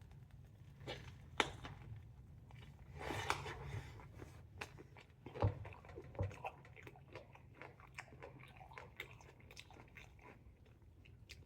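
Close-up chewing of a mouthful of Chicago-style hot dog: soft, wet mouth sounds broken by irregular small crunches and clicks from the pickle and fresh toppings.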